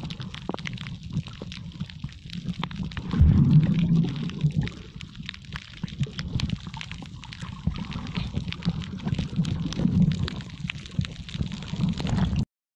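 Underwater sound from a camera held below the surface over a coral reef: a low rumble and gurgling of moving water with constant fine crackling. The rumble swells about three seconds in and again near ten seconds, and everything cuts off suddenly just before the end.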